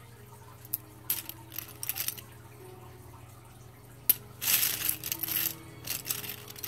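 Plastic gel pens clicking and rattling against one another as a hand stirs through a loose pile of them: a few light clicks at first, then a denser clatter a little past halfway.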